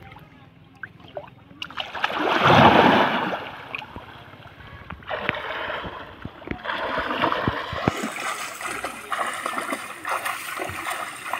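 Water splashing in a river: a loud rush of splashing about two seconds in, then steady lapping with many small splashes while a man swims.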